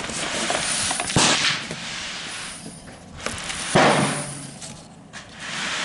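Gusting wind buffeting the microphone, broken by sharp bangs about a second in and again between three and four seconds in.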